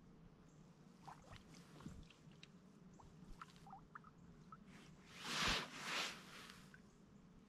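Faint water lapping and trickling around a drifting raft, with scattered small ticks. Two soft rushing swells come about five and six seconds in.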